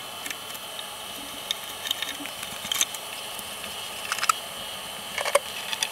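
Hex key clicking and scraping in the 3 mm socket-head screws of an aluminium amplifier case as they are undone: a few scattered light metallic clicks.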